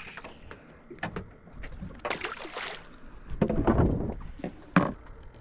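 Water sloshing against a fishing boat's hull, with scattered clicks and knocks. A louder swash comes about two seconds in and another just past the middle, and a sharp knock near the end.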